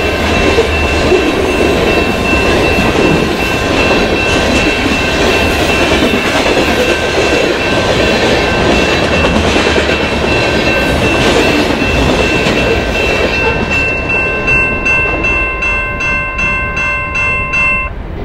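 Freight cars rolling past a level crossing: a steady rumble and clatter of steel wheels on the rails, with the crossing signal's bell ringing over it. The train noise falls away in the last few seconds as the end of the train passes. That leaves the bell ringing alone at about three to four strikes a second until it stops near the end.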